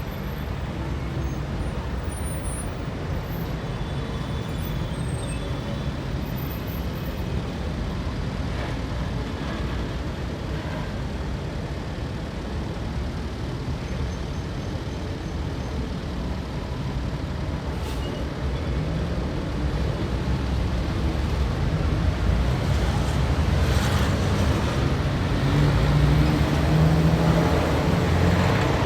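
Street traffic ambience: a steady rumble of cars and buses going by. In the last third a heavy vehicle's engine grows louder as it passes close.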